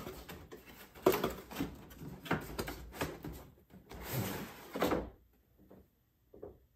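Cardboard boxes and packing being handled and lifted out of a shipping carton: scraping and rustling of cardboard with several sharp knocks, the loudest about a second in. It goes quiet after about five seconds, with a few faint taps near the end.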